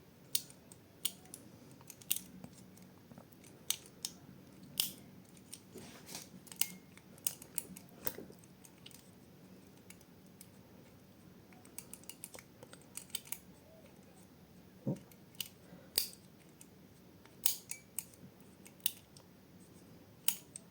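Lever pick tools working inside a Chubb Cruiser lever padlock: irregular small metal clicks and ticks, single and in small clusters, as the levers are nudged up one at a time.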